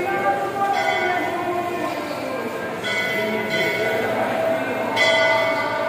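Temple bell struck about every two seconds, each strike ringing on until the next, with voices of the crowd faintly underneath.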